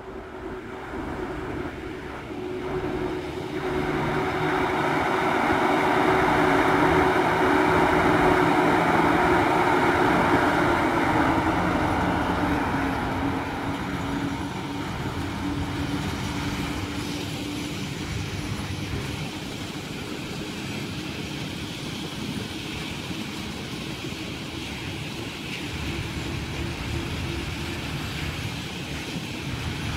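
PKP Cargo ET22 six-axle electric freight locomotive hauling a long train of open coal wagons past, with a steady electric hum over rolling wheel noise. The hum drops in pitch after about 11 seconds, and the train then carries on as a steady rumble of loaded wagon wheels on the rails.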